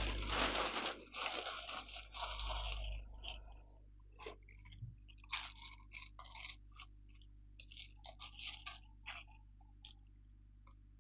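Plastic packaging rustling and crinkling as it is handled: a dense stretch for the first three seconds or so, then scattered short crackles, dying away near the end.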